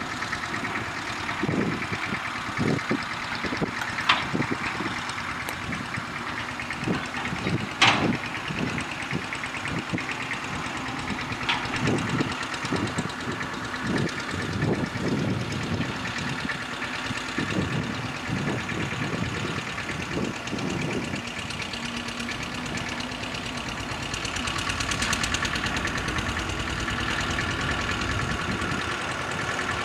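Diema DL 8 narrow-gauge diesel locomotive running with a train of tipper wagons, its engine a steady drone that grows louder about three-quarters of the way through. Irregular knocks and a few sharp clanks sound over it.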